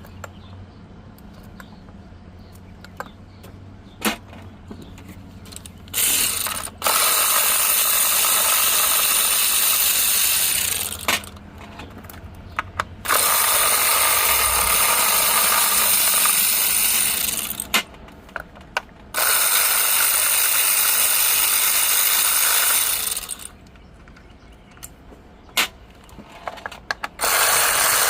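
Power ratchet spinning a fastener in four runs of about four to five seconds each, with sharp clicks of tools and parts in the gaps between.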